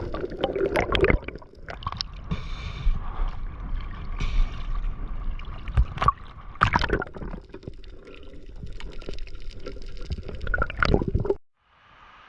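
Seawater sloshing and gurgling, with irregular splashes and bubbling. The sound cuts off abruptly near the end.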